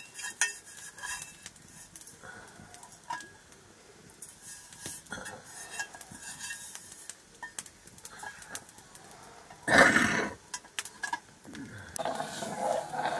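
Metal ladle clinking and scraping against aluminium cooking pots as a pot of liquid is stirred and handled over a wood fire, a scatter of small knocks and clinks. About ten seconds in comes a loud rushing burst lasting under a second.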